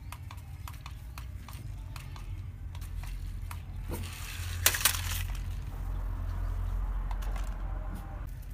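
Toy radio-controlled rock-crawler truck driving, its small electric motor whirring under scattered light clicks, with a loud plastic clatter about halfway through as it goes over the doorstep and drops down onto the dirt.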